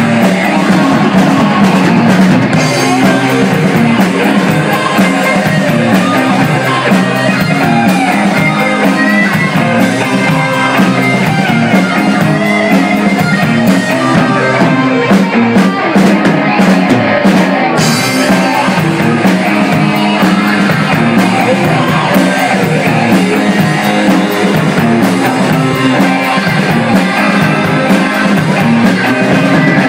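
A rock band playing live through a PA: electric guitar, bass guitar and drum kit driving a steady rhythm, with singing at times.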